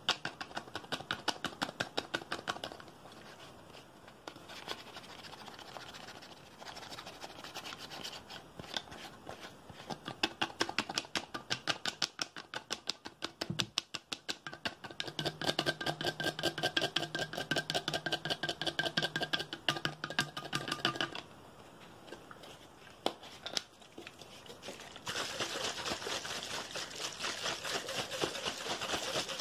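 Fast tapping and scratching on a clear plastic bottle and its red screw cap, a rapid stream of clicks and scrapes, with a steady humming tone for several seconds in the middle. About 25 seconds in it gives way to a continuous spray hiss.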